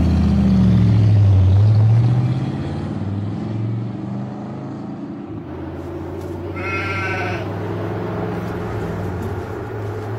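A vehicle engine revving as it pulls away, rising in pitch over the first two seconds, then settling into a steady low drone. A goat bleats once about two-thirds of the way through.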